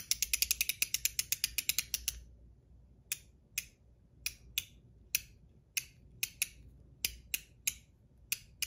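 ACEdc Pico Pick, a magnetic stainless-steel fidget, being worked in the hand and clicking: a fast run of clicks for about the first two seconds, then single and paired clicks about every half second.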